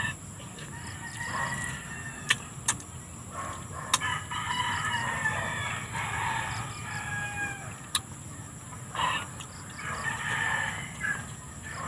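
Backyard chickens clucking and calling, with crowing-like calls thickest from about four to eight seconds in and again near the end. A few sharp clicks come between the calls.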